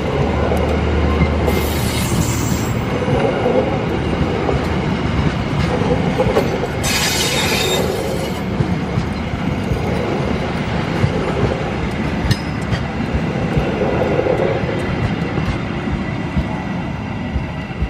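Passenger train coaches rolling past at close range: a steady rumble and clatter of steel wheels on the rails. There are two brief high-pitched wheel squeals, one about two seconds in and one around seven seconds. The sound eases slightly near the end as the last coaches approach.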